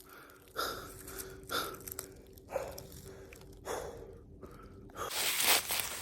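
A man breathing hard, with a gasping breath about once a second. Near the end, footsteps start crunching through dry leaves.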